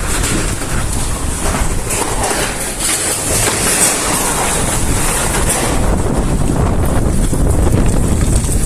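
Strong gusty wind, buffeting the microphone with a heavy low rumble under a rushing hiss that swells in the middle of the stretch.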